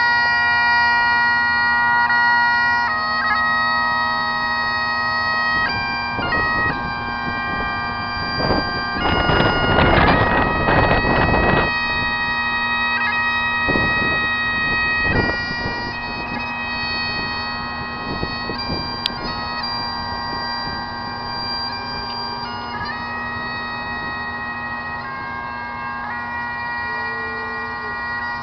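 Bagpipes playing a slow tune, with long held notes over a steady drone. A burst of rumbling noise on the microphone about nine seconds in, with shorter ones a few seconds later.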